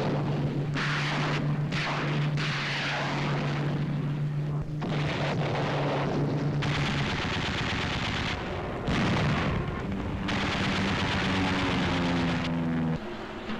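Fighter aircraft engines droning, overlaid by repeated bursts of gunfire, each lasting about a second; the engine note steps higher about two thirds of the way through.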